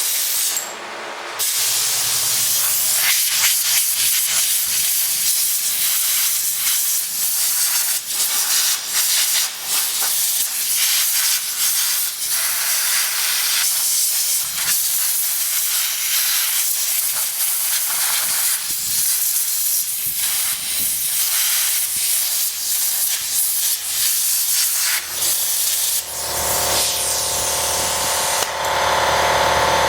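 Compressed-air blow gun hissing in long blasts with short breaks, blowing oil, grease and dirt off a Kohler Magnum 14 engine. Near the end a steady motor hum starts up and keeps running.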